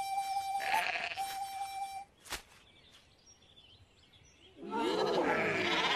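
A held, slightly wavering musical note for about two seconds, then a quiet stretch with a single click. From about four and a half seconds, cartoon sheep voices bleat and hum together in rising and falling swoops.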